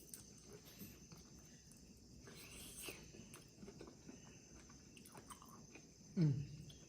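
Eating sounds: soft chewing clicks and mouth smacks, then about six seconds in a short low hum that falls in pitch, over a faint steady high whine.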